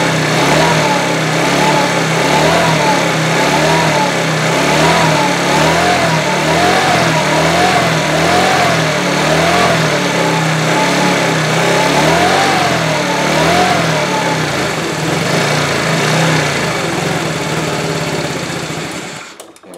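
TaoTao scooter engine running steadily, with a whine that rises and falls about once a second. It cuts off shortly before the end.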